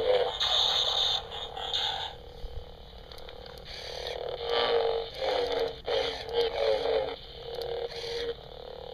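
Geared motor of a moving Darth Vader toy figure, grinding and creaking in several short bursts from about four to eight seconds in. It opens with a couple of seconds of sound from the toy's small speaker.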